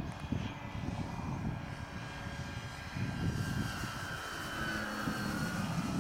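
Radio-controlled model aerobatic airplane's motor and propeller whining overhead, growing louder after about three seconds and dropping slightly in pitch as it passes near the end, over a low rumble.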